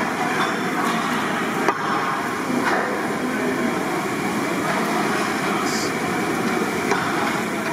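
Large pan of chicken curry being stirred with a long metal ladle over a wood fire: a steady noisy din, with a few sharp clicks.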